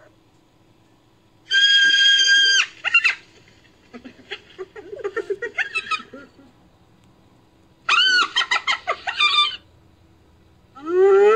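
Chicken calling: a long held call, then a run of quick clucks, then a few more arching calls.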